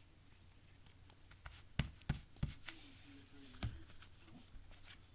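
Quiet handling sounds of a glue stick and cut paper triangles: a few soft clicks and taps, over a faint steady low hum.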